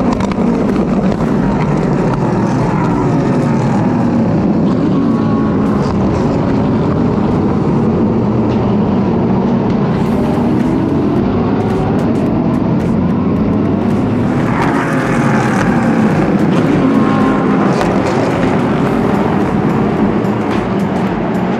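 A field of race cars passing at the race start, many engines overlapping, their notes rising and falling as they rev and change gear. The sound grows louder and brighter about two-thirds of the way through.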